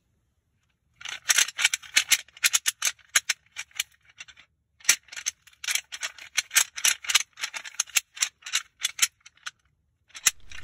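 Deer rattle bag worked between the hands: rapid clicking and clattering in two long bouts with a short break about four seconds in. This is rattling to imitate bucks sparring and draw a deer in.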